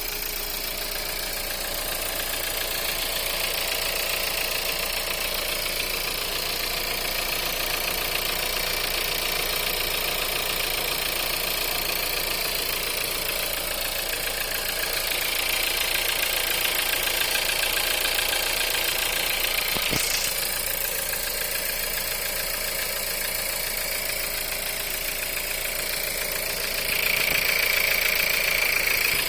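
Volkswagen 1.4 TSI EA211 turbocharged four-cylinder petrol engine idling from a cold start with a knock, the cold-engine knock that the owner is recording. A single sharp click about two-thirds of the way through.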